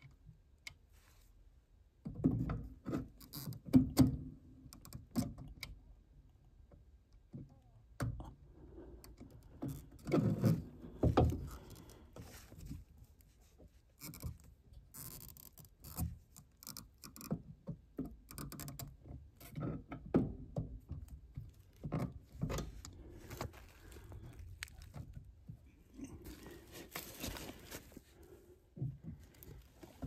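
Irregular scraping, clicks and knocks of hand work on an air handler's circuit breakers: stiff wires being worked into the breaker lugs and the lug screws tightened with a screwdriver. The handling noises come in louder clusters a couple of seconds in and again around ten seconds in.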